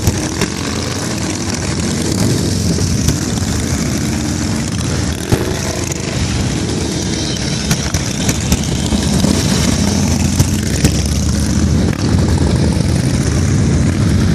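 A pack of heavy cruiser and touring motorcycles riding past in a group, their engines loud, with some revving.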